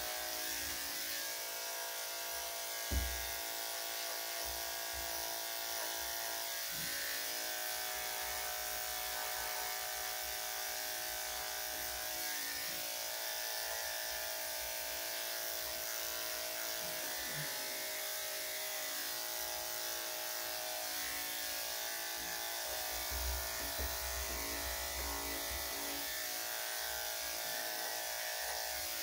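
Electric dog-grooming clippers running with a steady hum. One brief knock about three seconds in.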